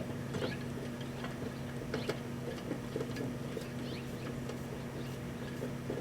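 Microwave oven running with a steady hum, overlaid with irregular small ticks and pops from the snow globe heating inside as its liquid froths.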